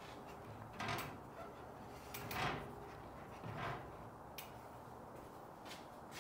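A handful of light knocks and scraping clanks, spaced a second or so apart, as a mountain bike is set down into a 1Up double hitch bike rack and the rack's metal arms are slid in against its wheels.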